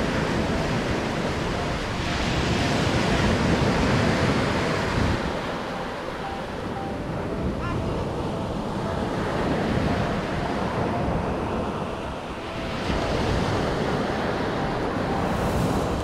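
Sea surf breaking and washing up on the beach, swelling and easing every few seconds, with wind noise on the microphone.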